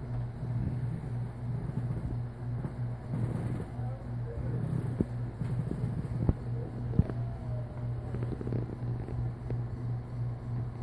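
Steady low hum, with a few light taps about five to seven seconds in.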